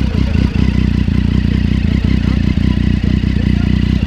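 Triumph Street Triple three-cylinder motorcycle engine idling steadily, close up at the exhaust.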